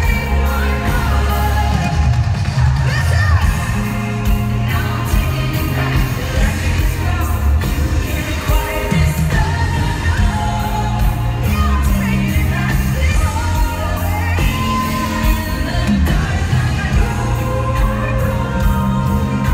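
Live pop song played loud over an arena sound system: a woman singing over a bass-heavy backing track with a steady drum beat.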